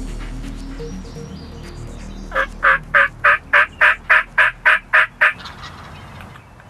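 A run of about eleven evenly spaced turkey yelps, about three and a half a second, lasting some three seconds before stopping.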